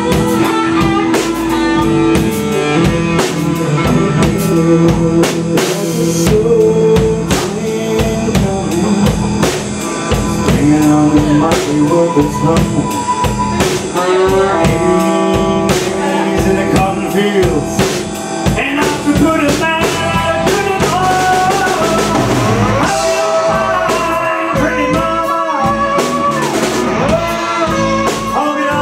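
Blues-rock band playing live: drum kit, electric bass and electric guitars, with a guitar line bending in pitch through the second half.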